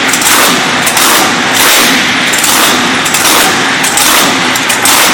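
1400-horsepower speed boat engine running very loud and harsh, with a crackling, distorted edge and a loping pulse about once a second.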